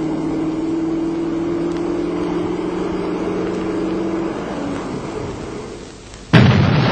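A truck engine runs steadily and fades away. About six seconds in comes a sudden loud explosion: unexploded wartime ordnance being blown up on purpose.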